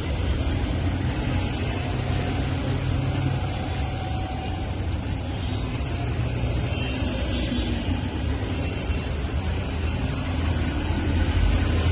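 Steady rumble and hum of road traffic passing close by, with no single vehicle standing out.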